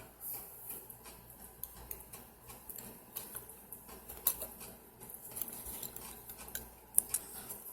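Small steel lock-pick tension wrenches clicking and clinking lightly as they are handled: scattered, irregular ticks, with a sharper click about four seconds in and another near the end.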